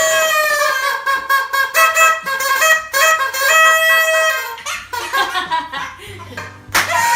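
Toy party horns being blown in long held honks, several at different pitches overlapping, breaking into shorter, scattered toots near the end.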